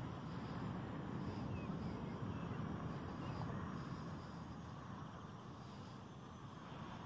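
Wind blowing across the microphone in open air: an even low hiss that swells and eases a little, with no engine or voice standing out.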